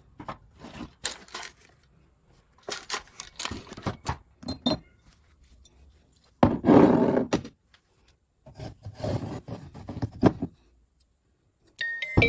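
Knocks and scraping as objects, including a carved wooden box, are handled and set down on a wooden tabletop, in several irregular bursts with the loudest about halfway through. Near the end a light-up musical snow globe starts playing a tinkling electronic chime tune.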